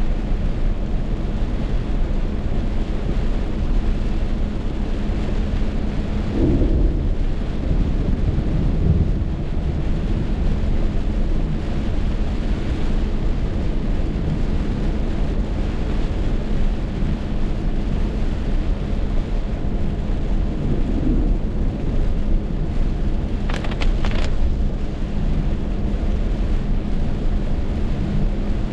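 Heavy rainstorm: a steady rush of rain with a deep, continuous low rumble. A brief sharp crackle comes near the end.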